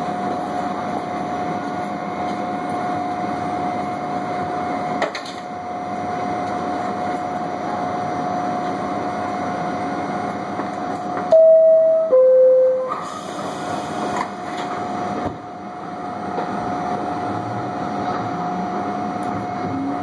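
R68A subway car running at speed, with a steady whine from its DC traction motors and gearing over rail and wheel noise. About 11 seconds in a train horn sounds loudly in two notes, a higher one and then a lower one. Near the end a low whine starts to rise.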